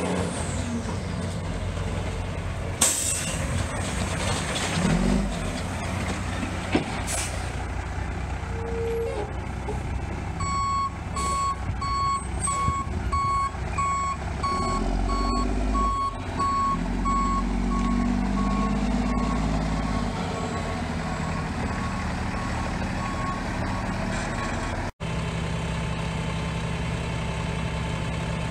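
2005 Mack roll-off truck's diesel engine running, with two short air-brake hisses in the first several seconds. Then a backup alarm beeps steadily about twice a second for around fourteen seconds as the truck reverses. After a brief cut-out near the end, the engine settles to an idle.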